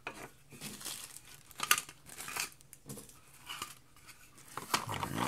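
Thin plastic packaging tray crinkling and clicking as a model boxcar body is handled and set back into it: a scatter of short crackles and clicks, with a sharper click about a second and a half in and another near the end.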